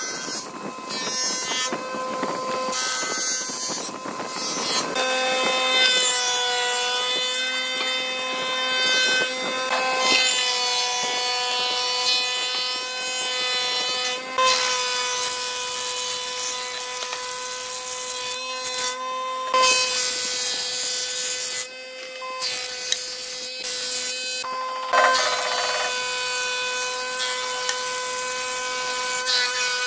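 A combination jointer-planer's cutterhead runs with a steady whine while a board is fed across it, with the rasp of the wood being planed. The whine sags slightly in pitch at times, and the sound breaks off briefly several times.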